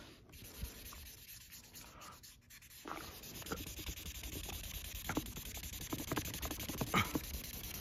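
Imagine Ink marker scribbling on a colouring-book page: faint at first, then short scratchy strokes come thicker from about three seconds in.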